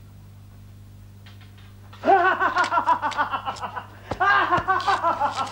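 A person laughing in two runs of quick, loud 'ha-ha' bursts, starting about two seconds in, over a steady low mains hum that is all there is before the laughter.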